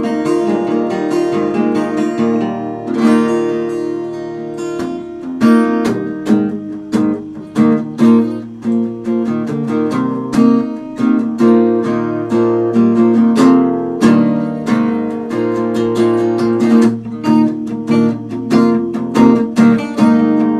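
Acoustic guitar being strummed, chords ringing on with a rhythm of repeated strokes.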